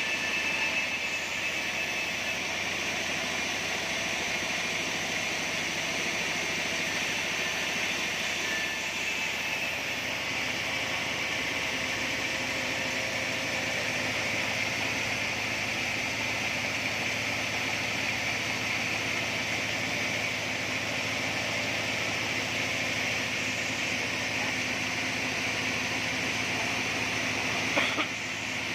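Band-saw sawmill running steadily: a constant mechanical drone from the motor and blade. A single short sharp knock near the end.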